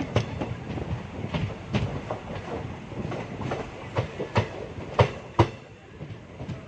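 Indian Railways ICF passenger coach riding along the track: wheels rumbling, with irregular clickety-clack knocks over rail joints and a pair of sharp, loud knocks about five seconds in.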